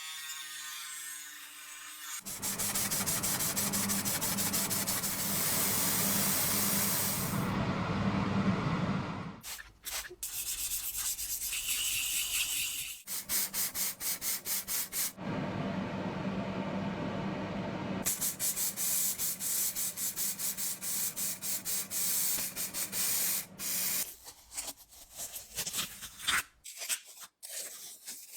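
Rapid rubbing or scraping, like sanding, in long stretches with short breaks, over a steady low hum. It grows choppier near the end.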